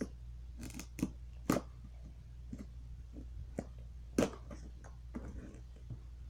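Scattered sharp clicks and knocks with soft rustling from handling a cardboard box and scissors, over a steady low hum.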